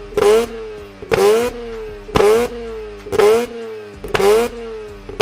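Car engine revved through its exhaust in quick blips, about once a second. Each blip jumps up sharply in pitch, then falls back toward idle; this happens five times in a row.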